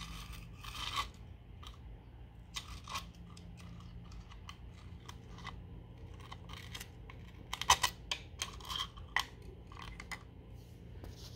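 Diamond needle file scraping in the grout joint between ceramic floor tiles and tapping on the tile: irregular short scratches and clicks, with a sharper burst of clicks about two-thirds of the way through. A faint steady hum lies underneath.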